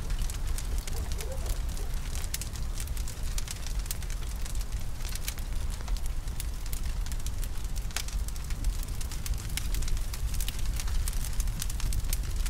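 Large bonfire of piled branches burning: a steady low rumble with frequent sharp, irregular crackles and pops.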